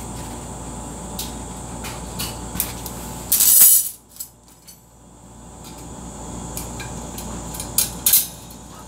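Light plastic clicks and knocks as divider bars are fitted into a plastic egg-setting tray and the tray is handled at the rack of an Rcom Maru incubator, with one loud, brief rustle about three and a half seconds in. A steady hum underlies it.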